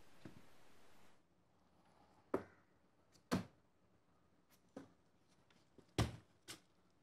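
About five sharp knocks or taps at irregular spacing in a quiet room. The loudest come about two and a half and six seconds in.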